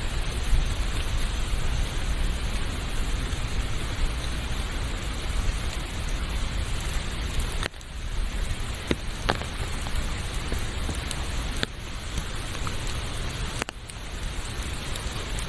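Steady heavy rain, an even hiss with a few sharp ticks scattered through it; the level dips briefly about halfway through and again near the end.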